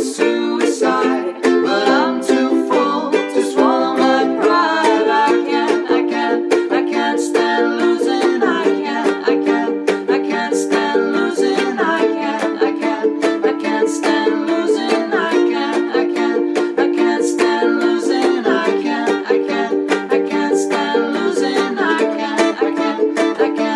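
Two ukuleles strummed in a steady rhythm, with two voices singing wordless 'ah-ooh' vocals over them.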